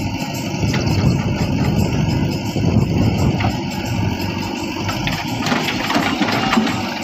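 Diesel engine of a JCB backhoe loader running under load while it digs. Near the end, a rattle of soil and stones pouring from the bucket into a steel tractor trolley.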